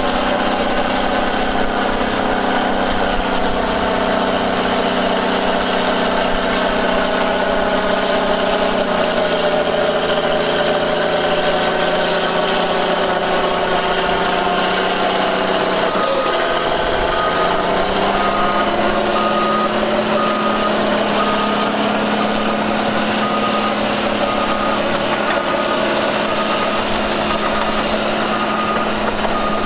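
Diesel engine of a tracked earthmoving machine running steadily, its pitch dropping about a third of the way in, dipping near the middle and then settling higher. From about halfway a reversing alarm beeps about once a second, the machine backing up.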